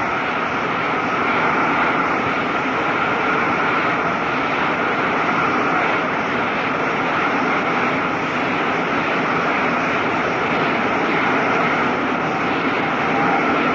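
Large ballpark crowd applauding and cheering in a steady, sustained ovation. It is heard through a 1940s radio broadcast recording.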